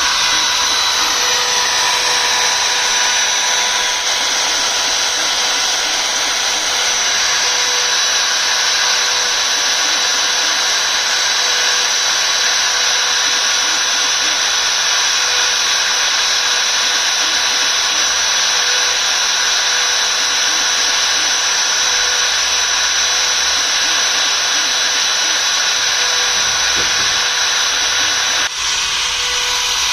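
CNC router spindle running at a constant high speed while engraving, a steady whine over a hiss of cutting, with a brief drop near the end.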